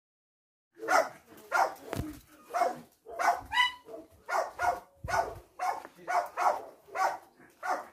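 Small dog, a French bulldog, barking repeatedly at about two barks a second, starting about a second in.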